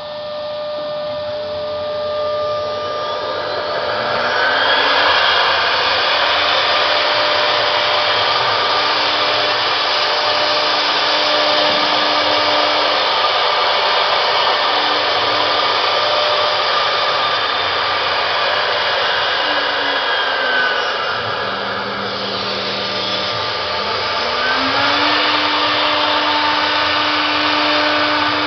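A three-spindle CNC router's spindles running at high speed and cutting a wooden board: a steady whine over a dense hiss of cutting. It builds over the first few seconds, and the pitch sweeps down and back up about three-quarters of the way through as the machine changes its cut.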